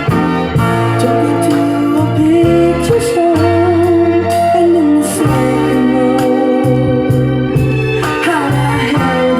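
Soul song playing: organ chords over bass and drums, with a sung voice.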